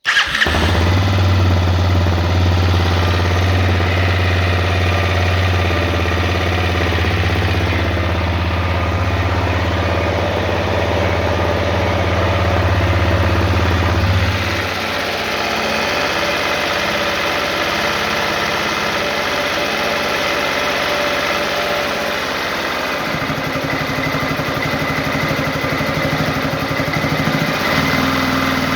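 Honda CRF250L single-cylinder engine idling, with the engine knock that the owner is recording. Its deep low note drops away about halfway through and comes back near the end.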